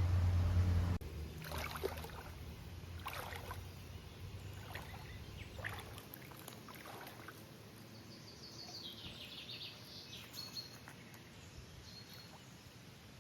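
A low steady hum cuts off suddenly about a second in. Scattered light knocks and clicks from handling follow over faint steady background noise, and a bird gives a quick run of high chirps in the latter half.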